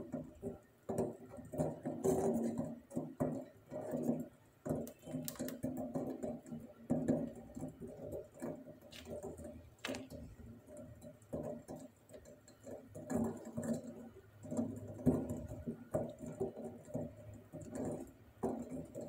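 Silicone spatula stirring a thick, thickening milk mixture in a stainless steel pot: irregular soft scraping and sloshing, with occasional light knocks against the pot.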